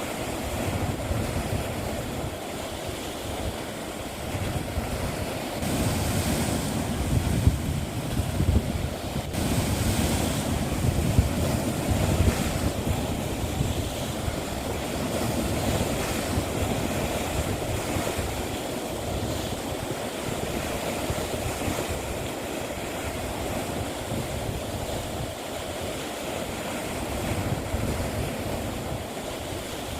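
Sea waves washing and breaking on the shore in a continuous surge, louder and hissier for several seconds about six seconds in, with wind rumbling on the microphone.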